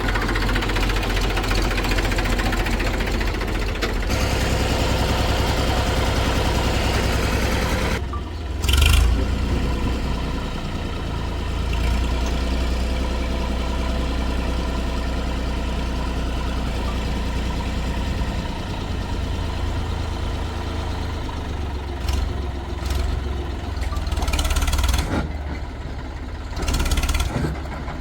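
Heavy diesel machinery engine running steadily at a low rumble, with a short louder surge about nine seconds in and a few smaller swells near the end.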